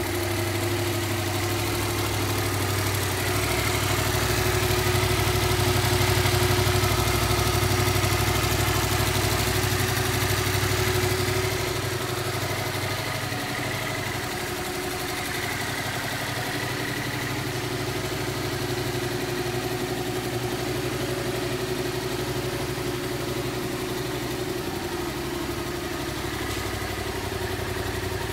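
Yamaha MT-07's parallel-twin engine idling steadily, a little quieter from about twelve seconds in.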